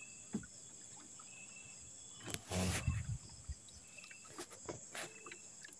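Night insects, crickets, chirring in a steady high drone, with scattered small knocks of handling in a wooden outrigger boat and one louder, brief noise about two and a half seconds in.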